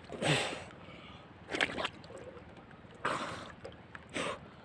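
Short sloshing, gurgling water sounds, four in a row roughly a second apart, made by a spearfisher moving in the water while stalking a fish.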